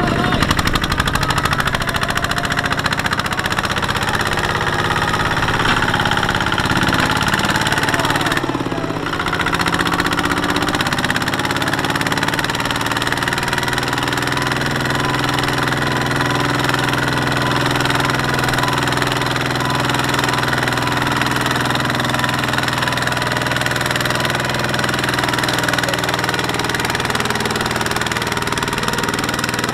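Single-cylinder Kubota ZT155 diesel engine of a two-wheel walking tractor running steadily under load, hauling a loaded trailer through deep mud, with a knocking diesel chug. The sound breaks off briefly about a third of the way through.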